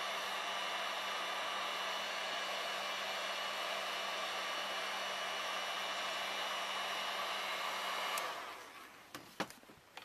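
Taurus electric heat gun blowing steadily, a whir with a low hum, heating the end of a polyethylene pipe to soften it for shaping. It is switched off about eight seconds in and winds down, followed by a few sharp clicks.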